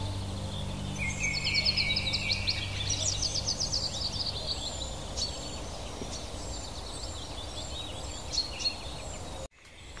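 Wild songbirds singing and chirping, with a fast trill starting about a second in, over a steady background hiss. The sound cuts out abruptly for a moment near the end.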